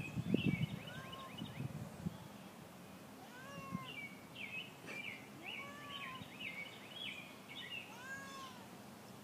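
Domestic cat meowing four or five times in short calls that rise and fall, the meowing of a cat wanting to be let back indoors. Birds chirp quickly and repeatedly in the background.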